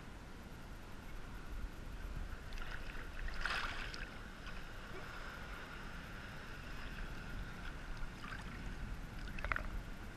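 Sea water sloshing and lapping around a camera held at the surface, with a steady low, muffled rumble. There are two sharper splashes, one about three and a half seconds in and one near the end.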